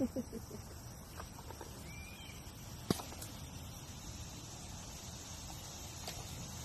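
Quiet outdoor ambience with a steady low background noise, a faint short chirp about two seconds in, and one sharp click about three seconds in.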